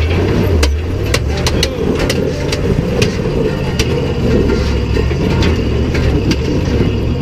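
Engine of a lifted International Scout running at crawling speed under load as it climbs concrete ledges. Sharp clicks and knocks from rocks and tyres are scattered through it.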